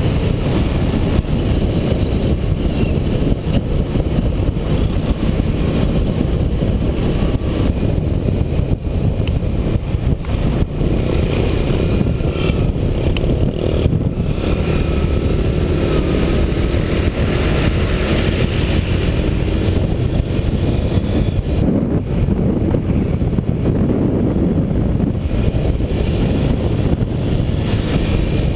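Motorbike riding at road speed: a steady rush of wind on the microphone, with the bike's engine running underneath.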